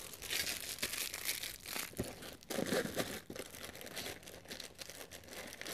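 Plastic packaging crinkling and rustling as oscillating multi-tool blades and attachments are handled, with light clicks and taps.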